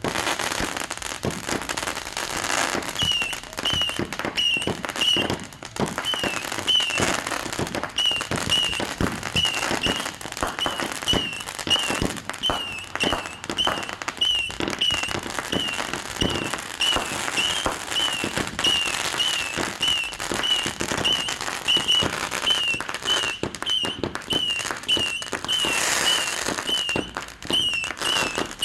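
Consumer aerial fireworks going off in a dense, continuous barrage of bangs and crackling. From about three seconds in, a short high falling chirp repeats about every half second over the bangs.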